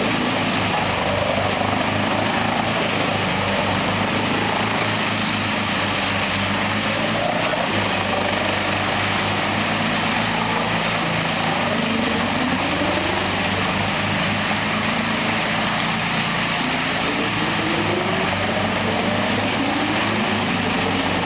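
Heavy machinery running steadily, likely bark-processing equipment turning bark into mulch. It makes a dense mechanical hiss over a low, even throb, with repeated rising and falling whines.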